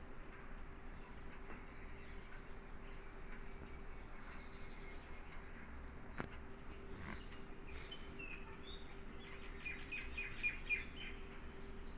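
Faint bird chirps over a low steady hum, with a quick run of short high chirps about ten seconds in and a single sharp click near the middle.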